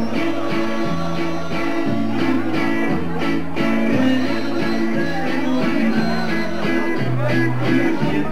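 Dance music playing steadily, with a bass line stepping between held notes and guitar.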